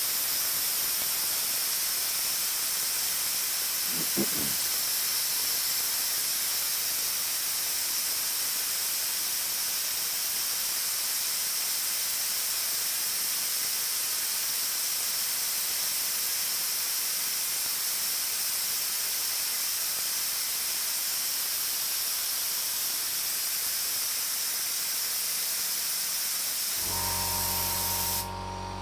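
Compressed air from an air compressor and an auxiliary air tank blowing out through an air blower: a steady hiss that cuts off abruptly near the end as the stored air runs out. A brief knock comes about four seconds in.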